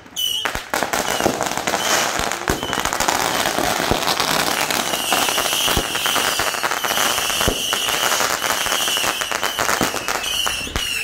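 Consumer fireworks going off on the ground: continuous dense crackling and popping, joined from about halfway in by a run of shrill whistles, each falling slightly in pitch.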